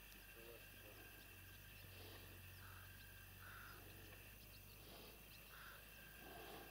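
Near silence: faint outdoor ambience with a steady low hum and a few faint short calls.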